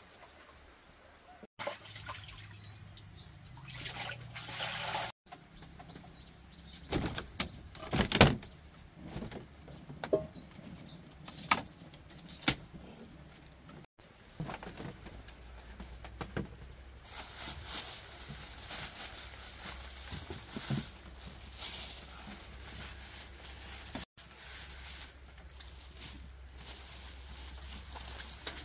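Household handling sounds: sharp knocks and clatters of pots and containers, then rustling and crinkling of plastic bags. Birds chirp faintly in the background.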